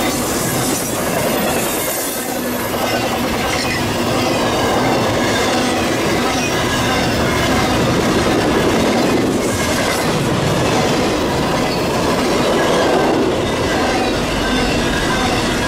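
Double-stack intermodal freight cars passing at speed close by: a steady, loud rumble and clatter of steel wheels on the rails.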